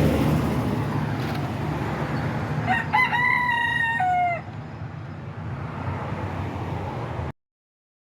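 A rooster crows once, about a second and a half long, rising, holding and dropping at the end, over a steady low hum. All sound cuts off suddenly near the end.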